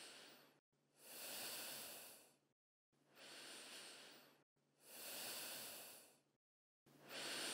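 Breathing sound effect: a steady rhythm of quiet breaths of air, one roughly every two seconds, each lasting about a second and a half with dead silence between. Four full breaths follow the fading end of a previous one.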